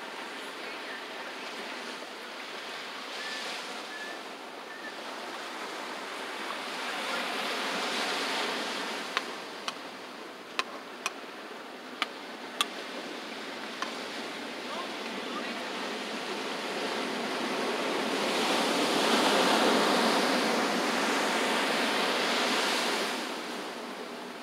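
Ocean surf breaking and washing up the beach in swells, the biggest about two-thirds of the way through. About seven sharp clicks come in a quick irregular run near the middle.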